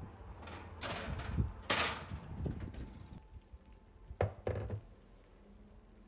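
Scraping and rattling as a glass baking dish is slid onto a metal oven rack, then two sharp knocks about four seconds in as the glass dish is set down on a wooden countertop.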